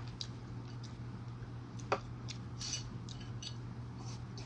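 Scattered light clicks and ticks of metal chopsticks and a spoon against a ceramic soup bowl while eating chicken soup, with one sharper click about two seconds in and a small cluster of ticks near the middle, over a faint steady hum.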